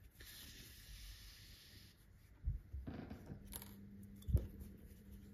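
Faint handling sounds of hand-sewing a crocheted amigurumi: a soft rasping hiss for about two seconds as the yarn end is drawn with a needle through the stuffed muzzle, then two dull knocks with some rustling between them.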